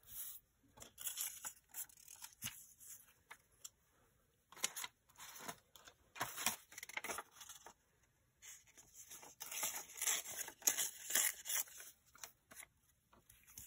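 Paper being torn and rustled by hand, likely old book-page scraps, in several irregular bursts with a short lull a little past the middle.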